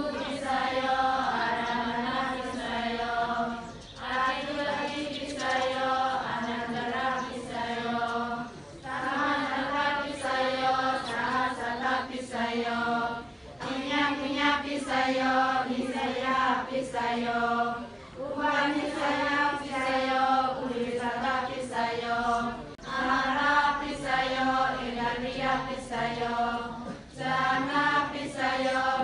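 A group of girls chanting a prayer together in unison, in repeated sung phrases that break for a short breath about every four to five seconds.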